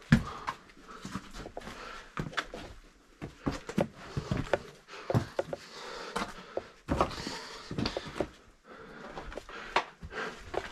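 Irregular knocks, clicks and scrapes of a caver scrambling over loose rock in a tight cave passage, with breathing between them. The loudest thuds come just after the start and about seven seconds in.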